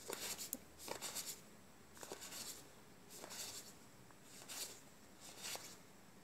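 Magic: The Gathering cards sliding against each other as they are flicked one by one from the front of a held stack to the back: a soft papery swish about once a second, six times.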